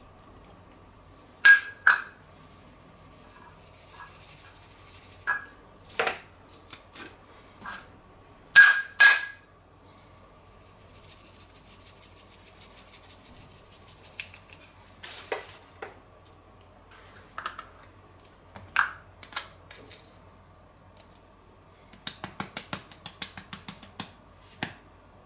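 Small metal spice tins clinking and knocking as they are picked up, opened and set down on a wooden cutting board, with a soft hiss of salt and spices being shaken out in two stretches, and a rapid run of small clicks near the end.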